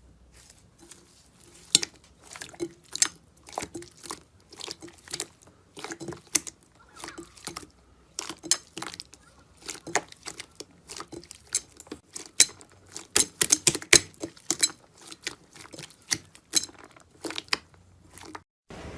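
Slime being squeezed and pressed by hand, giving irregular sharp clicks and crackling pops, several a second.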